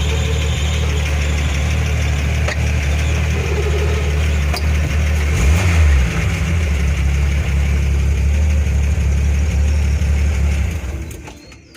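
Ford F-75 pickup's Willys six-cylinder engine idling steadily with the clutch pressed, with a small whirring noise from the clutch release bearing rubbing on the clutch cover; the noise is a sign of a worn release bearing. The engine stops near the end.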